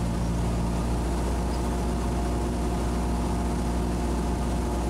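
Cessna 172's engine and propeller droning steadily inside the cabin, throttled back for the descent in the landing pattern.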